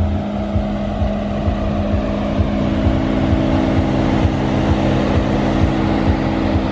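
Wind buffeting the microphone with uneven low thumps, over a steady machine-like hum made of a few fixed tones.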